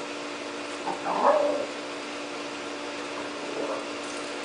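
A small dog gives a short whimpering call about a second in and a fainter one near the end, over a steady low hum.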